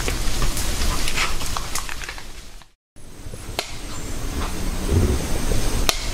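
Rustling and crackling in rainforest undergrowth, with scattered sharp snaps like twigs breaking. It fades out and cuts to silence for a moment about three seconds in, then resumes with a few more snaps and dull thumps.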